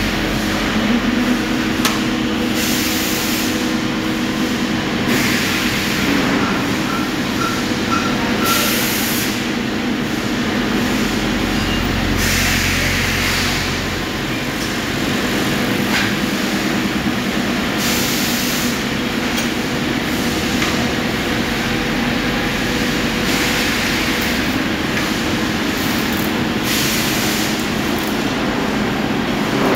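Engine lathe and workshop machinery running with a steady hum, while a hiss swells up for about a second every few seconds.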